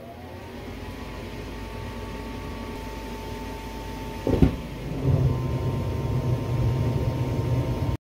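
Furnace starting a burn cycle: a motor's whine rises and levels off in the first second. About four and a half seconds in the burner lights with a sharp whoomp, followed by a steady low burner rumble.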